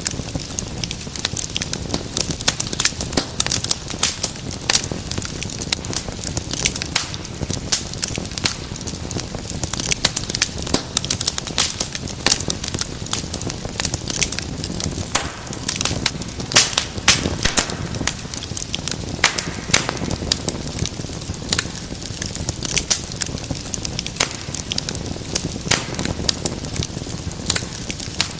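Wood fire burning in a fireplace: a steady low rush of flame with dense, irregular crackles and pops.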